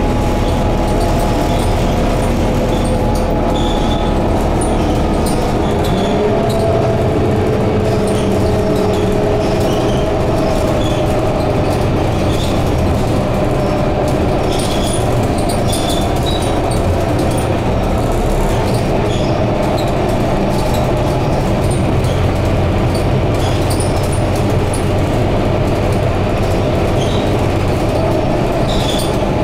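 Scania K230UB double-decker bus under way, heard from inside the upper deck: a steady engine drone and road noise with light rattling from the cabin. The engine note shifts in pitch about six seconds in and again near the end.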